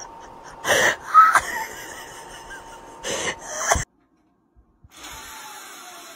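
Cat hissing in two short, harsh bursts about two seconds apart, with a brief squeak between them.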